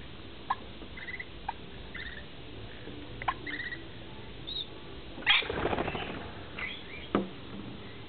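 Rainbow lorikeets at a plastic feeding bowl: a few short chirps and sharp clicks, then about five seconds in a louder flurry of wing flapping lasting about a second.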